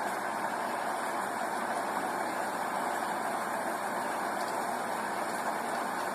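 Steady rain, an even hiss of falling drops with no changes.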